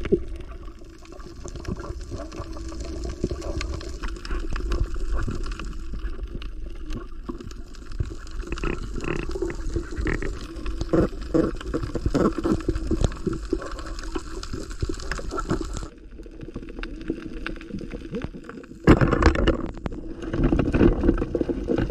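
Muffled underwater sound picked up by a camera in its waterproof housing: water gurgling and rushing with scattered knocks of movement, changing abruptly twice, about 16 and 19 seconds in.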